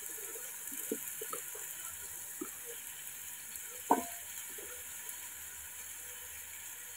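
A wooden spoon stirring in a metal cooking pot on the stove, with one sharp knock of spoon on pot near the middle. Around it, small clicks of a knife working pumpkin over a basin, under a steady faint hiss.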